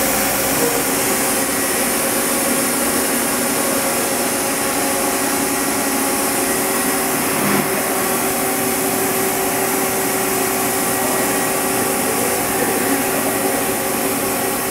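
Hyundai HiT-15S CNC turning centre powered up and running steadily: a constant machine hiss with several steady hum tones under it, and a faint tick about halfway through.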